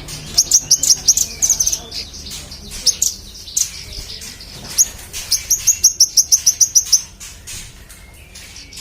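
Manggaran songbird singing gacor (energetically): bursts of sharp, high chirps, rising to a fast run of about six chirps a second that stops about seven seconds in.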